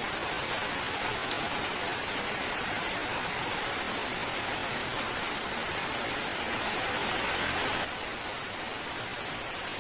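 Steady rain falling, an even hiss of many drops with no distinct individual hits. About eight seconds in it abruptly becomes a little softer.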